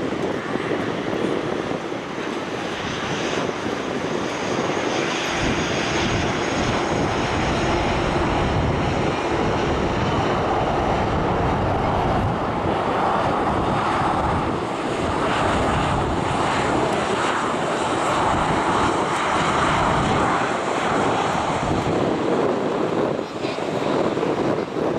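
Boeing 777 freighter's GE90 turbofan engines running at taxi power as the jet rolls past: a steady jet rumble and rush with a faint high whine above it.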